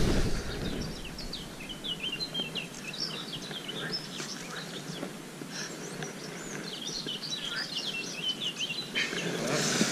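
Small birds singing: a quick run of short, high chirps and trills over faint outdoor background noise, stopping about a second before the end.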